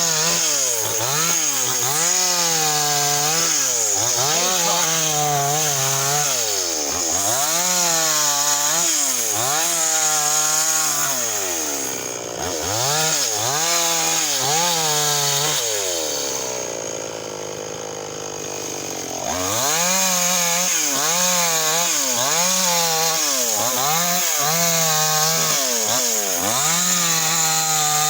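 Two-stroke chainsaw engine running at high revs, its pitch rising and falling again and again as the throttle is worked and the chain bites into wood. About two-thirds of the way through it drops briefly to a lower, quieter, steadier run before revving up again.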